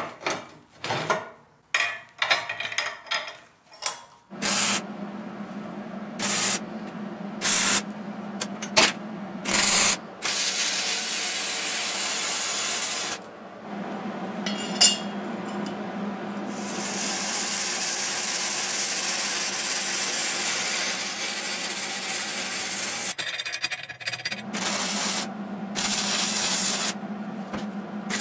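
Flux-core wire welding with a Hobart Handler 140 MIG welder: a few short bursts of arc crackle as tack welds, then two long welding runs of steady sizzling crackle, over a low hum. A few light knocks of steel parts being handled come first.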